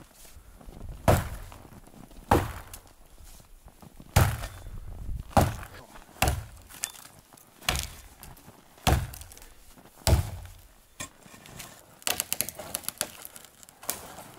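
Axe chopping into the trunk of a dead standing pine to fell it: about eight heavy blows a little over a second apart, each with a deep thud, then a quick run of lighter knocks near the end.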